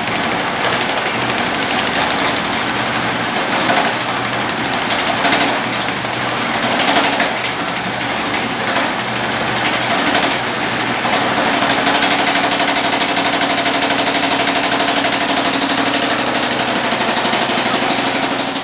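A homemade power hammer, driven by a cut-down car differential, hammers rapidly on a sheet-metal panel being shrunk between its dies. About 11 seconds in, the blows settle into a more even, steady rapid rhythm.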